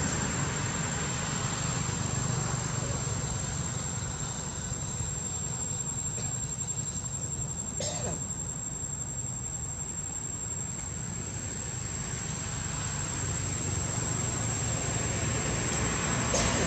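Outdoor ambience: a steady high-pitched insect drone over a low rumble, with a brief click about eight seconds in.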